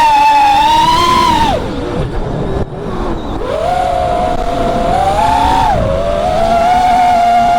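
FPV quadcopter's brushless motors and propellers whining, the pitch rising and falling with the throttle. The whine drops away about a second and a half in, then climbs back about two seconds later and holds high with small swells, picked up by the onboard camera.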